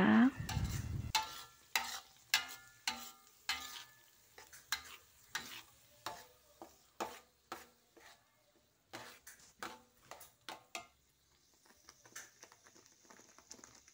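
Spatula scraping and knocking against a wok while stir-frying a blended peanut paste in oil, about two strokes a second with short pauses. A faint sizzle of the frying paste comes up near the end.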